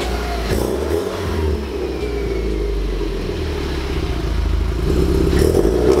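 Modified Subaru STI hatchback's turbocharged flat-four engine running at low speed through its Cobb cat-back exhaust as the car creeps forward, the exhaust note swelling near the end with a couple of brief sharp clicks along the way.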